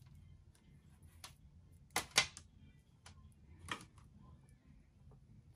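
A few scattered sharp clicks and knocks from objects being handled, the loudest two close together about two seconds in, over a low steady hum.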